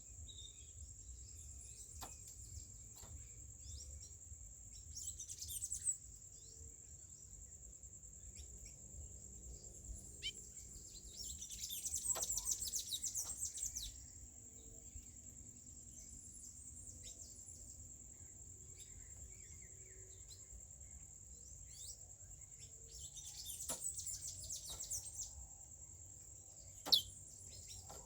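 A songbird sings three bursts of rapid, high twittering, over a steady high-pitched drone. A single sharp click comes near the end.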